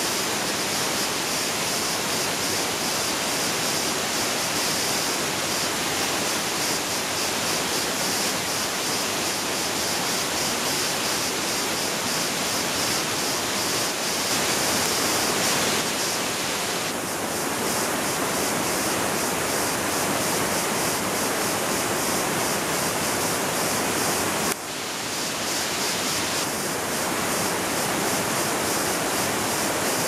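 Steady rush of water from a rocky jungle stream and waterfall, an even noise with no voices. The sound's colour changes abruptly about 17 seconds in and again about 25 seconds in.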